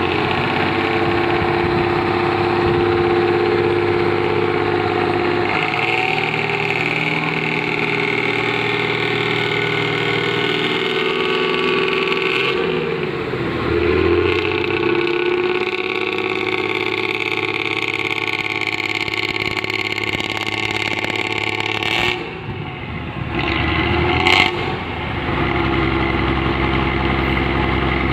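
Hino AK1JRKA bus's six-cylinder diesel engine running through a loud racing exhaust with a rough, snoring note. The engine note dips and then climbs again about halfway through. It falls away briefly about three quarters of the way in, then builds up again.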